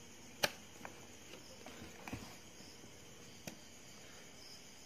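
A few clicks and taps of fingers working the plastic air vent on top of a Spyder Spike 2 full-face helmet: one sharp click about half a second in, another about three and a half seconds in, and faint ticks between. Crickets chirp faintly in the background.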